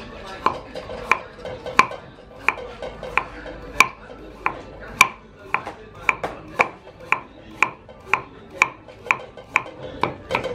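Kitchen knife slicing a carrot on a thick round wooden chopping block: a steady series of sharp knocks, about two a second, quickening a little in the second half.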